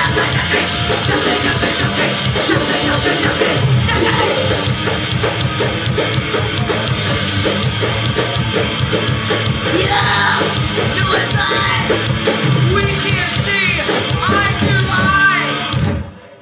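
Punk band playing live, loud drum kit and amplified instruments under yelled vocals; the song stops abruptly near the end.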